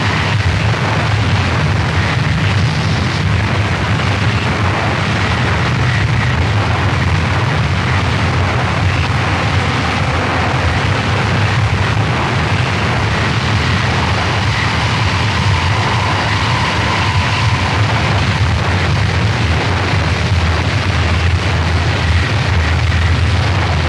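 Harsh noise music: a loud, unbroken wall of distorted noise with a heavy low rumble, and faint high whines that come and go.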